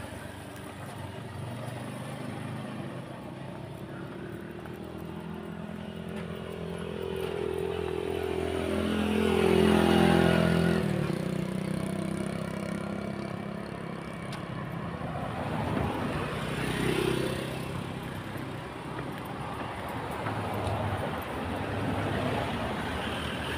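Road traffic passing close by: a vehicle's engine grows louder to a peak about ten seconds in and drops off suddenly as it goes past, and a second vehicle passes a few seconds later.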